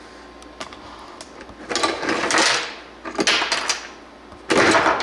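Objects handled and slid on a hard surface: three scraping, rustling bursts with a few small clicks between them.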